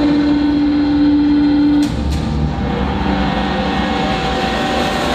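Backing track of a stage performance: a held low note, two sharp hits about two seconds in, then low rumbling drones.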